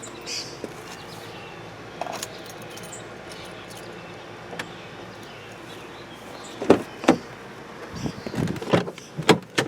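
Scattered clicks and knocks of handling, with a light jingle, over a steady faint hum; the knocks come thicker and louder in the last three seconds.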